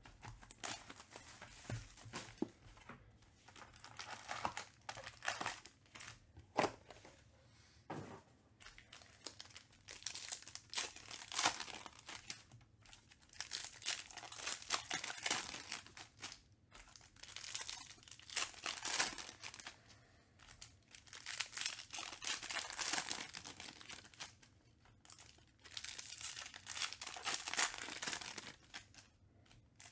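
Trading-card pack wrappers being torn open and crinkled, in a string of rustling bursts a few seconds apart, with a couple of sharp clicks in between.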